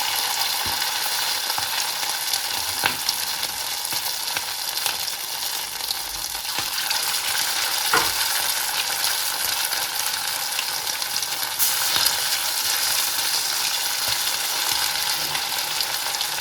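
Chicken pieces sizzling steadily in hot oil in a pan, with scattered pops and crackles and now and then a scrape of a utensil.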